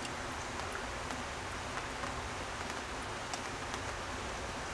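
Steady soft hiss of outdoor background noise, with a few faint scattered ticks.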